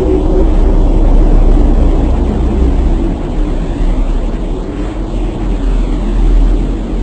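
A loud, steady low rumble with no clear rhythm or separate events.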